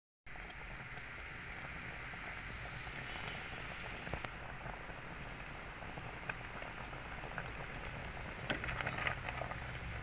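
Creamy chicken stew simmering in a stainless steel pot: a steady, soft bubbling hiss with fine crackles. Near the end come a few light knocks as a spatula stirs it.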